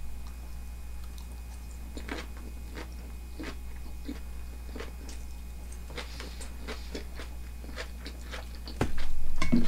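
Close-up chewing of a mouthful of crisp raw sliced onion and horse-meat sashimi, with irregular crunching clicks. A louder thump comes near the end.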